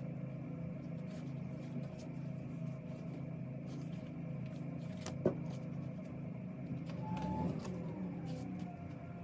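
A steady low hum, with one sharp knock about five seconds in.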